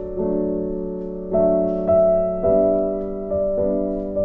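Background music: soft electric piano or keyboard playing slow sustained chords that change about every half second to second.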